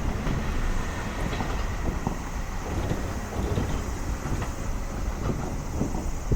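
A train running on the rails, a steady rumble of wheels on track.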